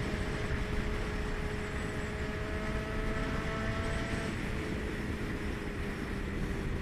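Honda CBX 750 F's air-cooled inline-four engine running at a steady cruising pitch under heavy wind and road rumble. The engine note eases off slightly about four seconds in.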